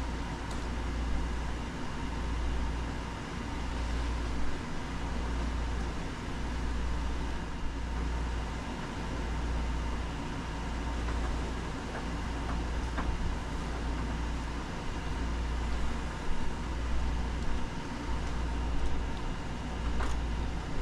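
A steady low mechanical rumble and hum that swells and eases every second or two, with a few faint ticks.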